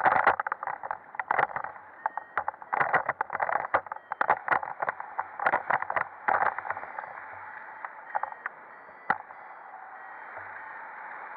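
Wind rushing over a paraglider pilot's body-mounted camera during launch, with many sharp, irregular knocks and crackles over the first seven seconds. Once the pilot is airborne it settles to a steadier rush with only a few clicks. The sound is narrow and muffled.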